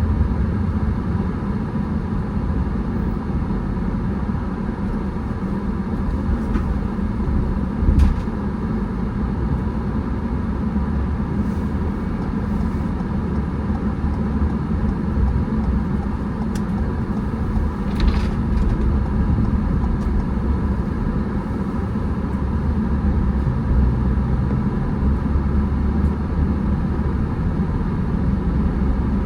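Steady engine and road rumble of a car driving, with a few brief knocks, the loudest about eight seconds in.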